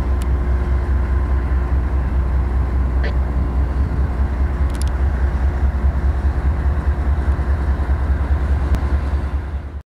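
Freight train of open-top gondola cars rolling past, a steady low rumble with a few faint clicks. The sound cuts off suddenly near the end.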